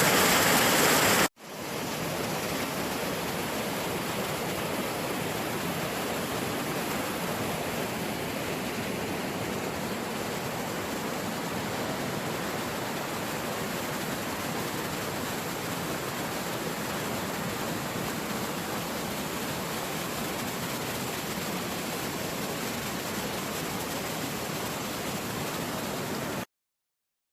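Steady rush of a waterfall, an even hiss of falling water. It is louder for about the first second, drops suddenly, then runs on evenly until it cuts off just before the end.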